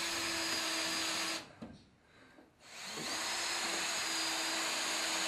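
Cordless drill spinning a countersink bit into fiber cement backer board, pre-countersinking a screw hole so the screw head will sit flush. It runs steadily with a constant whine, stops for about a second and a half, then spins up and runs steadily again.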